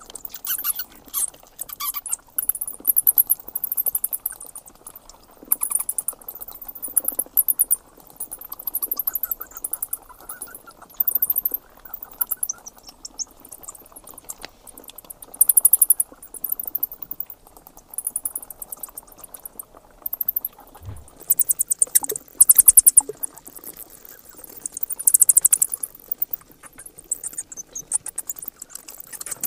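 Bats calling: rapid trains of high-pitched squeaks and clicks in bursts of a second or two, with short gaps between.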